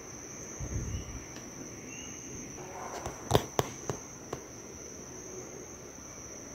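Steady high-pitched drone of forest insects. A dull low thump comes about a second in, and a quick run of sharp snaps and clicks, like twigs or brush breaking underfoot, comes around the middle.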